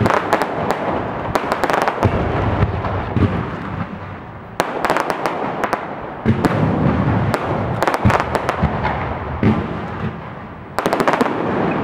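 Aerial fireworks display: volleys of sharp bangs from shells bursting overhead, coming in waves every second or two with a dense noisy wash between them. A fresh cluster of bangs comes about a second before the end.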